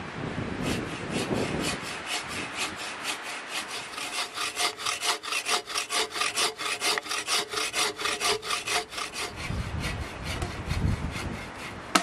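Hand saw cutting through wood with quick, even back-and-forth strokes that go on for most of the stretch.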